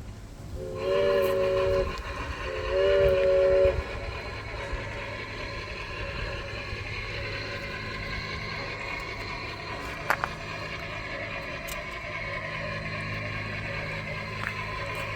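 G-scale model train giving two blasts of a steam-locomotive whistle, each a bit over a second long, then running on with a steady, even mechanical sound. A single sharp click about ten seconds in.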